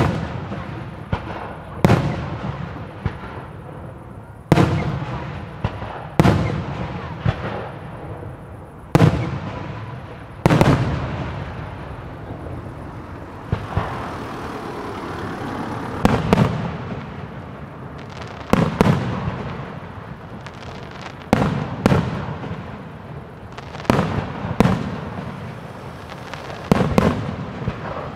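Aerial firework display shells bursting, one loud bang every one to three seconds, each followed by a long rolling echo, with smaller pops in between.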